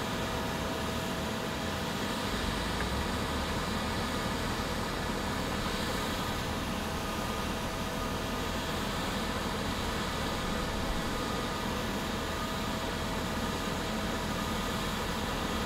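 Steady machine noise: an even rushing hiss with a constant mid-pitched hum, unchanging in level.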